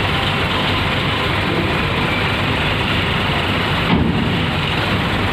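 Steady rumble of a big coach bus engine as the bus creeps up the ferry's loading ramp, under dense steady background noise. There is a heavier low rumble about four seconds in.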